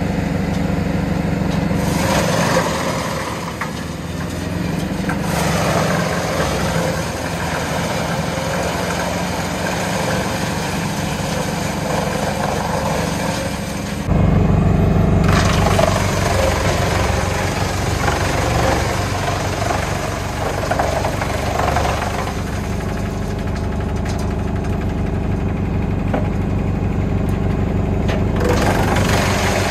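Tractor-powered Junkkari HJ500 wood chipper running steadily, with stretches of louder, noisy chipping as logs are fed through it and chips are blown out of the spout. About halfway through, the steady engine drone abruptly becomes heavier and deeper.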